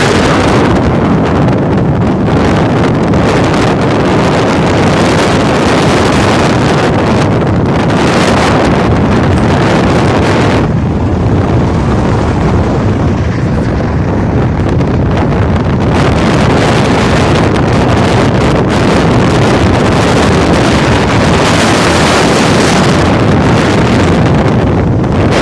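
Strong wind buffeting the microphone: a loud, continuous rumbling roar with gusts, easing a little in the middle.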